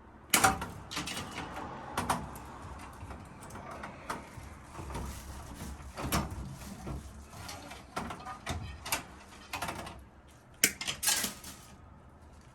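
Hands working with wires and small parts at a fire alarm panel: scattered clicks, knocks and rattles, the loudest about half a second in and a cluster near the end.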